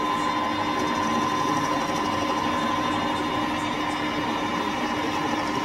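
Manual metal lathe running steadily with an even hum and whine, facing off the end of a solid bar.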